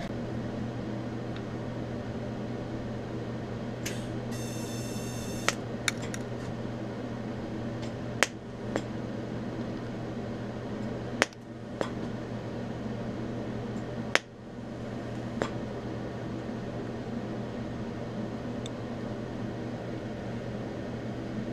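TIG welder humming steadily while speed tacks are struck along a butt joint in thin steel sheet, with a handful of sharp clicks and crackles and a short high-pitched buzz about four seconds in as the arc is started.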